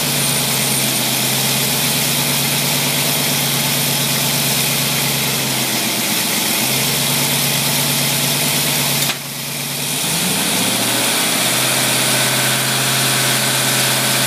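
Engine running steadily at idle on a rebuilt Carter AFB four-barrel carburetor. About nine seconds in the sound dips suddenly, then the engine note climbs back up over the next second or so. It is running a little rich but otherwise sound, with no fault in the carburetor.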